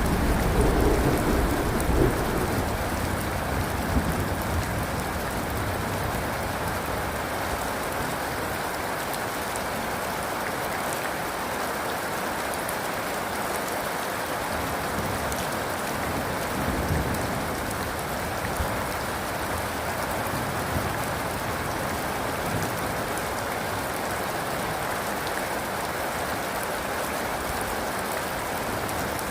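Steady rain falling, an even hiss throughout, with a low rumble of thunder dying away over the first couple of seconds.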